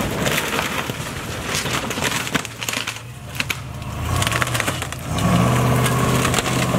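Armored Chevrolet Suburban's engine running as the SUV drives through brush and smashes into a small wooden shed, with wood and branches cracking and crunching throughout. The engine gets louder about five seconds in.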